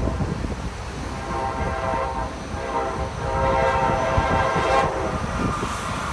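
Train horn blowing for about four seconds, broken into a few long blasts, over the low rumble of passing electric trains. Near the end the rush of an approaching Amtrak Acela builds.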